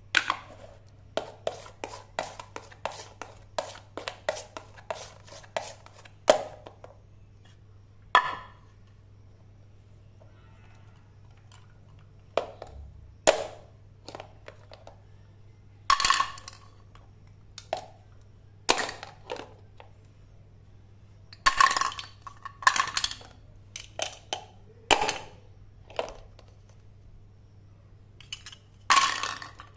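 Plastic toy fruit and a toy plastic knife clicking and tapping on a plastic cutting board as the play fruit is sliced into halves. Rapid taps during the first six seconds, then separate clusters of clicks and short scraping sounds every few seconds.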